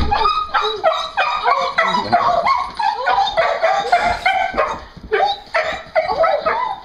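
Dog whining and yelping in a quick run of short, high-pitched cries that rise and fall, with a brief pause about five seconds in: the excited cries of a dog greeting its owner home.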